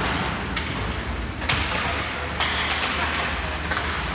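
Ice hockey play echoing in a rink: four sharp clacks of sticks, puck and boards, the loudest about a second and a half in, over a steady low hum and the hiss of play on the ice.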